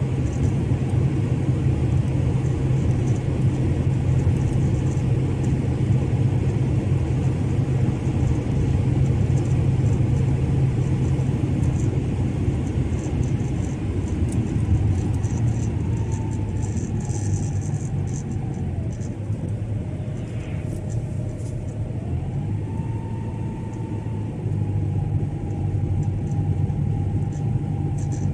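Car being driven on the road: a steady rumble of engine and tyres, easing off for a stretch in the middle and picking up again near the end. From about halfway, a faint whine slides down and back up in pitch.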